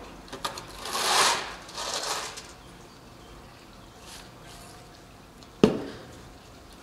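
A plastic snow shovel scraping twice into a heap of dark soil on asphalt, then fainter swishes. Near the end comes a single sharp knock with a low thud.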